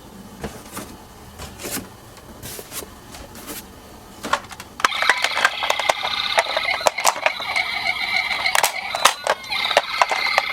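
Toy ambulance minicar's electronic siren sounding from about five seconds in, a steady high-pitched tone mixed with rapid plastic clicks and rattles of the toy rolling. Before it, scattered light clicks and knocks of the toys being handled.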